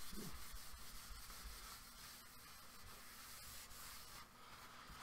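A cloth wiping a dry-erase whiteboard: faint, quick back-and-forth rubbing strokes that die down after about a second and a half.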